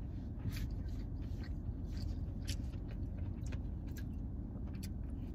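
A person chewing sushi, with scattered small wet mouth clicks, over a steady low hum inside a car.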